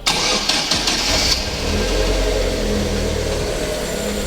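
Car engine running at idle to charge a flat battery for a jump-start, with a rush of hiss over the first second and a half before it settles into a steady hum.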